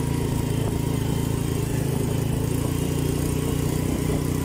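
Linhai 300 ATV's single-cylinder four-stroke engine running at a steady low speed.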